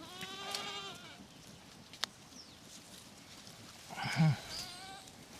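A stressed ewe bleating twice, a quavering call of about a second, then another about four seconds in. A single sharp click falls between the two bleats.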